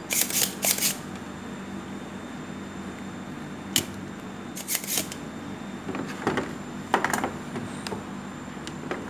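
Spring-loaded desoldering pump firing on the circuit-board joints of an LG washing machine's control board: sharp snaps with short sucking hisses, several times, with small handling knocks. A faint steady electrical hum runs underneath.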